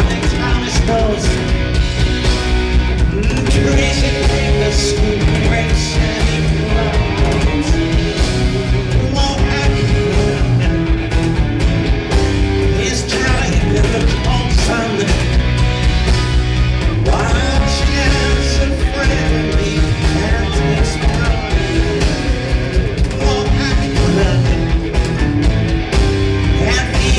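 Live rock band playing loud, with electric guitars, bass, drum kit and keyboards, recorded from among the audience.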